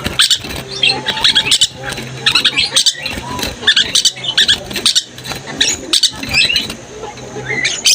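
Perkici (lorikeet) chattering vigorously: a fast, continuous run of shrill squeaks, chirps and short screeches.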